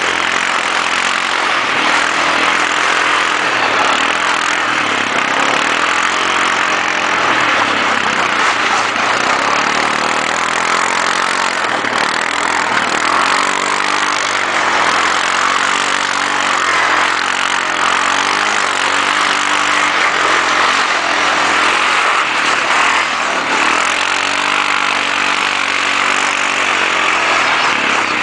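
Quad bike (ATV) engine running under load on a muddy trail, its pitch rising and falling again and again as the throttle is opened and eased, over a steady rushing noise.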